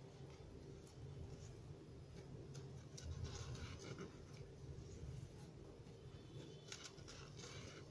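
Faint rustling and scratching of jute twine being wound around a plastic bottle by hand, in a few soft scratchy rustles, the clearest near the end, over a low steady hum.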